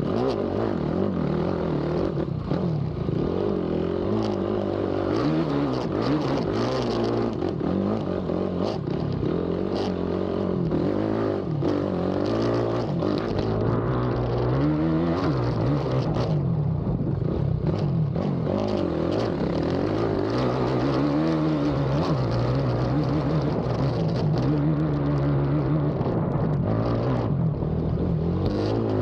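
Race ATV engine revving hard and easing off over and over as it accelerates, shifts and brakes on a rough cross-country track, with scattered knocks and clatter from the machine over bumps.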